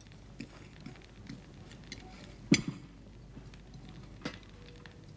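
Light clinks of cutlery, china and a silver serving dish at a dinner table, with one sharper knock about halfway through.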